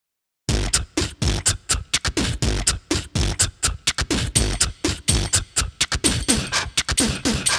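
Beatbox-style intro music: a fast run of short rhythmic vocal-percussion hits, some with a falling pitch, starting about half a second in.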